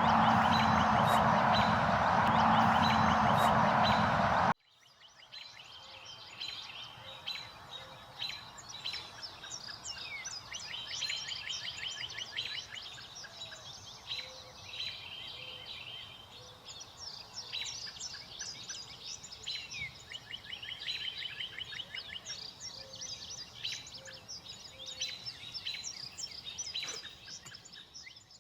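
Small birds chirping and twittering in many quick, high, falling notes, with a few low short notes repeating now and then. Before the chirping, a loud, steady rushing noise with a faint regular ticking cuts off abruptly about four and a half seconds in.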